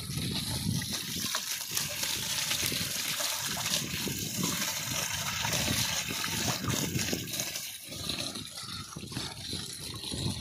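Water gushing steadily out of the side hand-hole of a drip-irrigation filter tank and splashing onto wet ground, with sloshing as a hand scoops sandy sediment out from inside during its cleaning.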